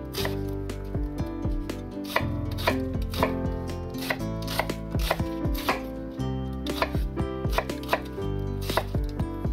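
Chef's knife chopping onion on a bamboo cutting board: sharp, irregular strikes of the blade on the wood, about two a second, over background music.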